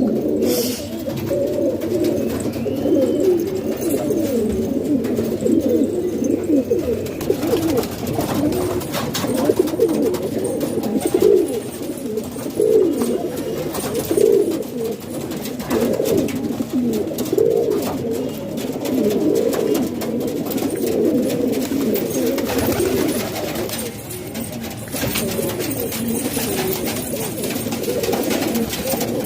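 A flock of domestic pigeons cooing together, many overlapping low coos forming a steady, continuous chorus.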